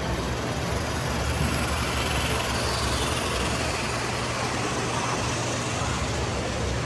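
O gauge model steam train with passenger cars rolling past close by, a steady rumble of its motor and wheels on the track.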